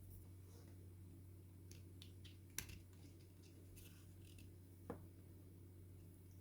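Near silence over a steady low hum, with faint scattered clicks and ticks of small parts being handled at the bench; two sharper clicks stand out, about two and a half and five seconds in.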